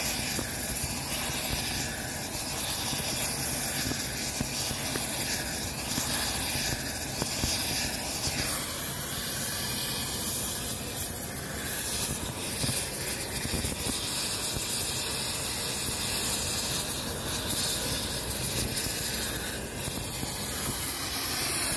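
Gas torch hissing steadily as its flame preheats the rail ends in a thermite weld mold.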